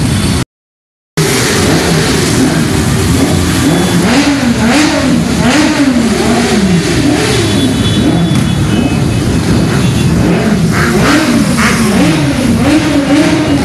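A procession of motorcycles riding past, several engines revving up and down over one another. The sound cuts out completely for under a second near the start.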